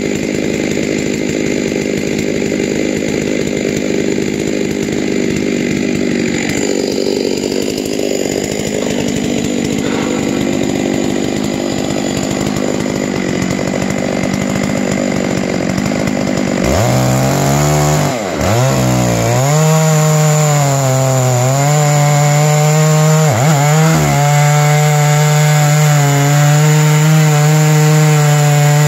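Huztl MS660-clone two-stroke chainsaw in a chainsaw mill, running steadily and then, from a little past halfway, louder as it rips lengthwise through a cherry log. Its engine note dips briefly twice in the cut.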